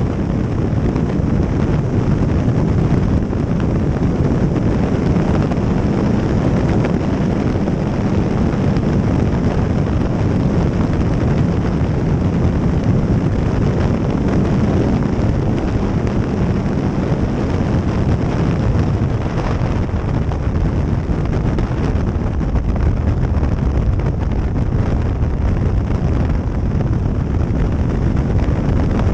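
Steady wind rushing over the microphone of a Kawasaki motorcycle cruising on the open road, with the engine running underneath.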